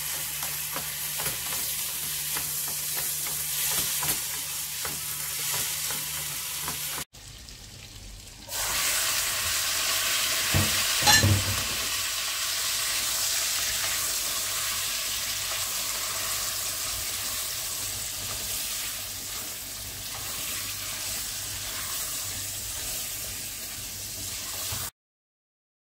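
Food frying in oil in a nonstick pan, a steady sizzle as it is stirred with a spatula. The sizzle breaks off about seven seconds in and returns louder a second or so later, with a couple of knocks of the spatula against the pan soon after.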